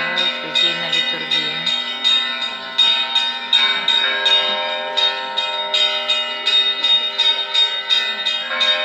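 Russian Orthodox church bells ringing together for the Sunday liturgy. Small bells are struck in a quick, steady pattern of several strokes a second over the lingering ring of larger bells.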